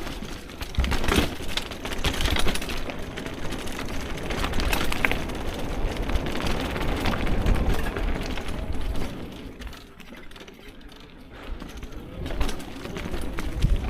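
Car driving, a steady low rumble with scattered knocks and rattles, easing off for a couple of seconds about ten seconds in.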